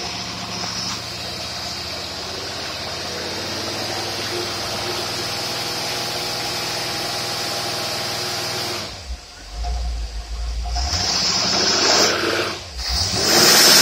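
Engine fed by a rebuilt Holley two-barrel marine carburetor running steadily under dyno load. Near the end its sound drops away and picks up again twice.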